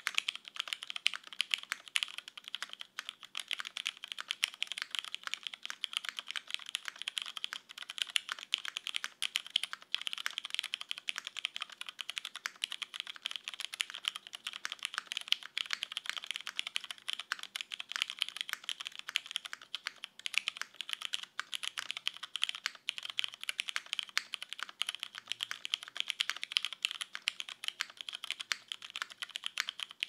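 Continuous typing on a GS60 custom mechanical keyboard with lubed Cherry MX Brown tactile switches on a UHMWPE plate, o-ring sandwich gasket mounted with no foam, under GMK keycaps. It is a dense, unbroken run of keystrokes with the clack sitting in the upper mids and very little deep low end.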